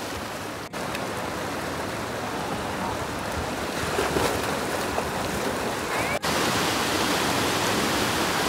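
Mountain stream rushing over rocks, with splashing as a person bathes in the shallow water. The sound cuts out briefly twice, and after the second break the rushing is steadier and a little louder.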